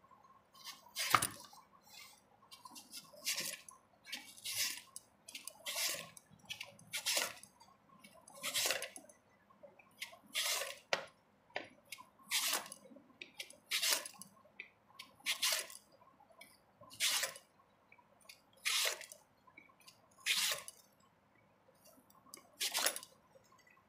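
A raw potato drawn by hand across the julienne blade of a stainless-steel kitchen slicer: a short rasping slice about every second and a half as thin potato strips are cut.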